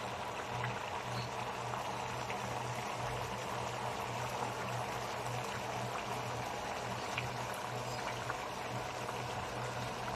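Coconut-milk stew of bamboo shoots, jute leaves and shrimp simmering in a pan: a steady bubbling hiss with small scattered pops, over a steady low hum.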